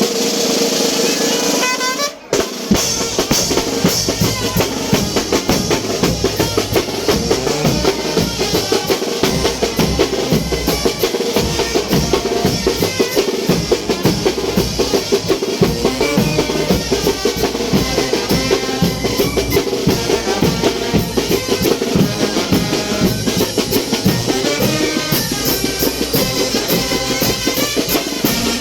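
Brass band (banda de viento) playing chinelo dance music: bass drum, snare and cymbals keep a fast, steady beat under the horns. The music breaks off briefly about two seconds in, then carries on.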